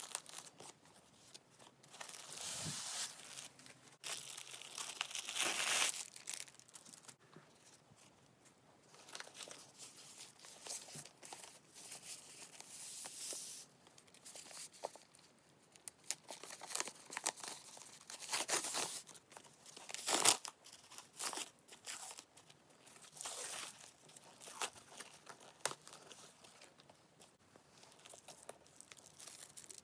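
Protective foam and paper wrapping being handled and pulled off a new handbag and its leather strap: irregular rustling, crinkling and tearing in bursts. One sharp click stands out about two-thirds of the way through.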